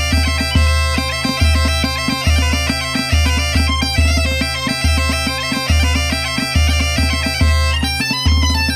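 Two Galician bagpipes (gaitas) playing a muiñeira melody over their steady drone, with a bass drum (bombo) striking a regular beat a little under once a second and a snare drum (tamboril) filling in quick strokes.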